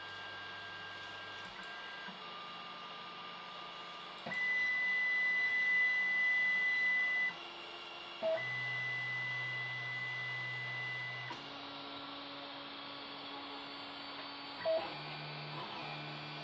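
3D printer's stepper motors whining at a series of steady pitches, each held for a few seconds and then jumping to another, as the axes move at the start of a print. There are a couple of short clicks and a steady hum underneath.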